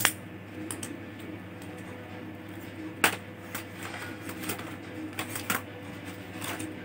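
Sharp clicks and light taps of small laptop parts and a screwdriver being handled during reassembly. One loud click comes at the start and another about three seconds in, then a scatter of softer ticks, over a steady low hum.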